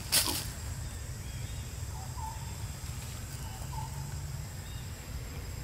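Outdoor ambience with a steady low rumble. A sharp, brief noise comes just after the start and is the loudest thing heard. Faint short animal chirps follow, about two and four seconds in.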